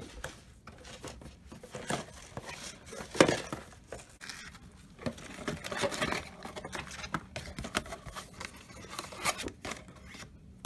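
Cardboard accessory box and the clear plastic bags of doll accessories being handled and unpacked: irregular rustling and crinkling of plastic and cardboard, with a sharper snap about three seconds in.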